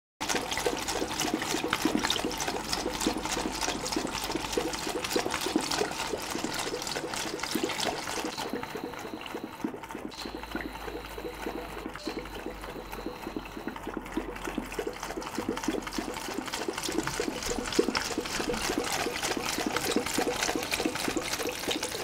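Tap water running in a steady stream into the neck of a water-filled balloon standing in a basin's plughole, splashing and spilling over into the basin.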